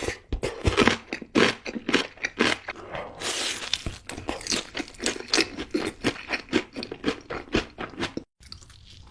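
Close-miked eating: a rapid run of loud, crisp crunching bites and chewing, several crunches a second, of crunchy fried fast food. It breaks off abruptly near the end, and the eating that follows is quieter.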